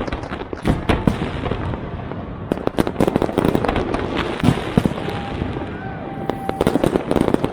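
Fireworks display going off in rapid succession: many sharp cracks and pops, one after another, over a constant din of bursting shells.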